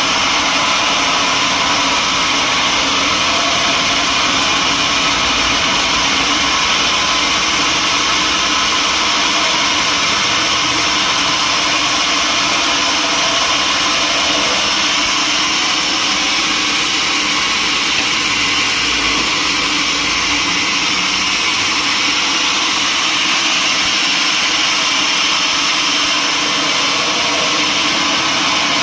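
Sawmill saw running steadily, a constant loud machine noise with a hissing top and no breaks.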